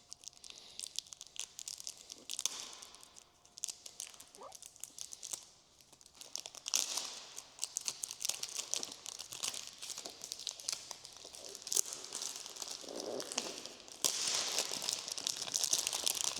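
A perfume box's packaging being unwrapped and opened by hand: irregular crinkling, rustling and tearing of the wrapping, busiest near the end.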